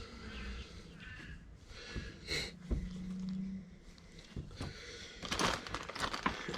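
Faint bird chirps in the first second or so, then a few light knocks and a short hum. From about five seconds in comes a dense rustling and crinkling.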